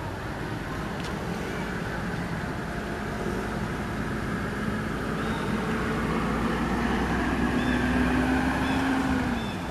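A motor vehicle's engine running with a steady hum that grows louder and slightly higher, then drops away shortly before the end.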